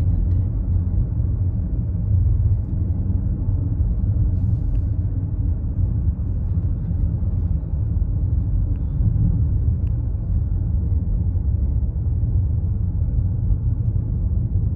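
Steady low rumble of a car driving along a road: tyre and engine noise.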